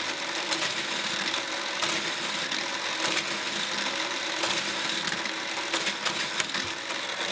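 Small battery-powered booster motor of a plastic toy car track whirring steadily, with frequent light plastic clicks.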